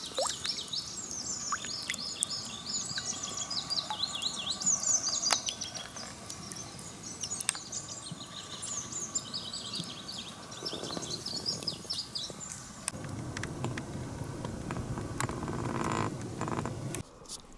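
Small songbirds twittering, a dense run of short high chirps. The chirping fades about twelve seconds in, and a low rushing noise rises near the end.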